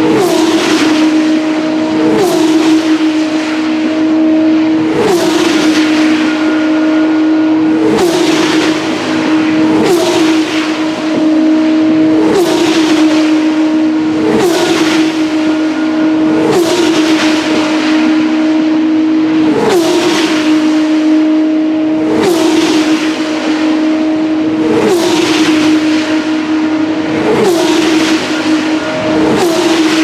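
Single-seater race car engines running at high revs, a steady engine note with a rush that sweeps down in pitch about every two and a half seconds.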